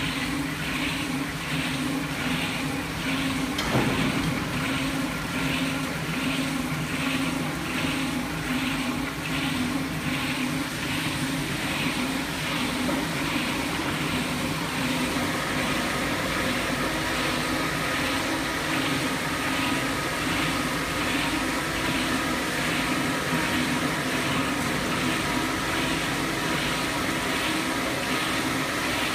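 Bridge-type single-head stone polishing machine running, its rotating head working a wet stone slab: a steady hum under a hiss that pulses about twice a second. A single knock comes about four seconds in.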